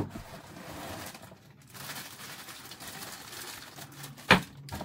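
Plastic-bagged accessories and their cardboard box rustling and crinkling as they are handled and pulled out, with a sharp knock about four seconds in.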